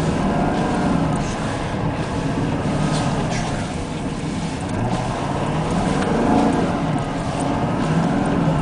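Car engine working hard as the car ploughs through deep snow, its pitch rising and falling with the throttle, heard from inside the cabin.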